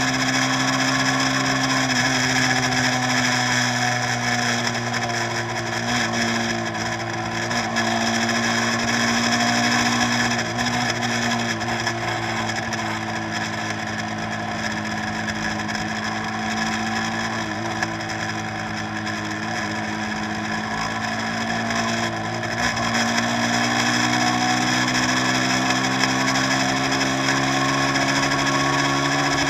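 Tour boat's engine running steadily with a droning hum. Its pitch sags slightly a couple of seconds in and climbs back a little over 20 seconds in.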